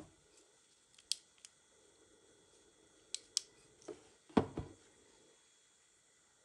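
A flashlight being handled over an open wooden drawer: a few light clicks, then knocks as it is set down on the drawer bottom a little after halfway, the loudest about four and a half seconds in.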